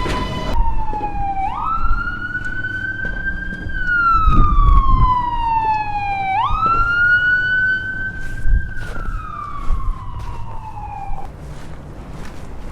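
Emergency vehicle siren wailing: the pitch jumps up, climbs a little, then falls slowly, two full cycles, before cutting off about eleven seconds in. Street traffic noise underneath.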